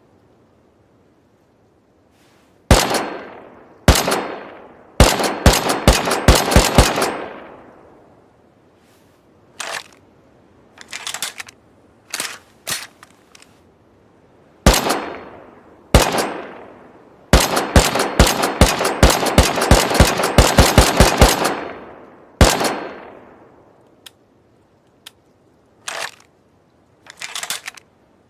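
Semi-automatic rifle sound effect: loud single shots, each with a fading echo, and two rapid strings of about four shots a second, one about five seconds in and a longer one around twenty seconds in. Fainter snaps and pops come in between the strings and near the end.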